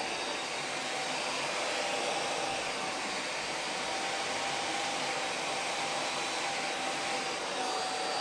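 Handheld hair dryer blowing steadily on high, with a faint steady whine, during a roll-brush blow-dry.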